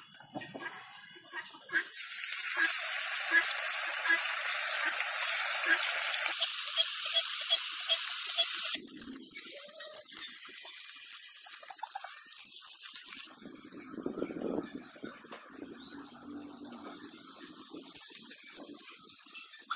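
Nethili (anchovies) sizzling in hot frying oil, a loud steady hiss that drops sharply about nine seconds in to a quieter crackle.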